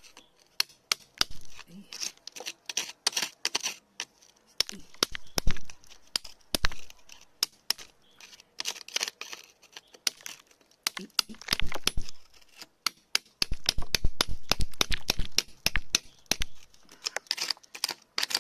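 Hand tools scraping and picking at soil and rock: a dense run of irregular sharp clicks and crackles with scratchy scrapes, busiest near the end.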